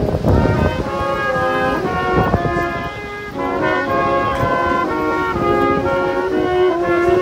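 Street brass quintet of trombones and trumpets playing a Christmas tune in held chords that change every half second or so, over the low rumble of city traffic.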